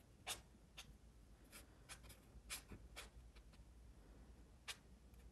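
Faint, quick strokes of a watercolour marker on watercolour paper as short grass stems are drawn: a string of brief, irregularly spaced scratches.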